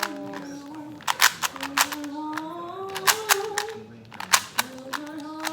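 Rubik's cube being turned by hand: quick, irregular clicks and clacks of the plastic layers snapping round. Under them a voice hums a slow, wordless tune.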